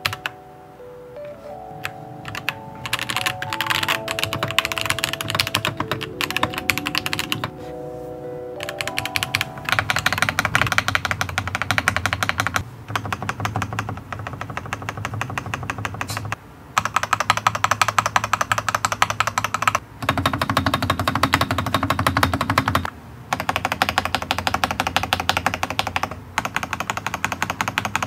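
Large stabilized keys of a Dareu Z82 mechanical keyboard, still on their stock stabilizers, being pressed over and over in quick succession: fast runs of clacking, one key after another, with brief breaks between runs. Light background music with mallet-like tones and a few key presses comes first and stops about nine seconds in, where the rapid clacking begins.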